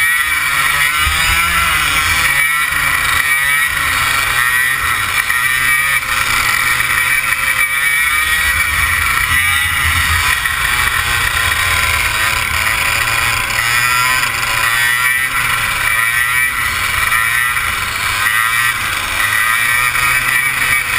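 100cc two-stroke racing kart engine at high revs, heard from on board, its pitch repeatedly climbing under throttle and dropping off into corners.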